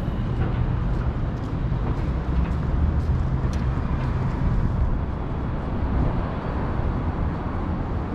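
City street ambience: a steady low rumble of motor traffic, with a few faint clicks.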